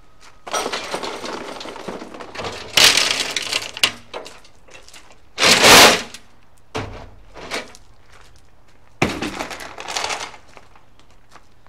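Loose gravel and asphalt chunks pouring and rattling into a rusty steel gas tank, loaded as an abrasive to scour the rust off the inside. It comes in three noisy stretches, the loudest a short burst about six seconds in as the tank is stood on end.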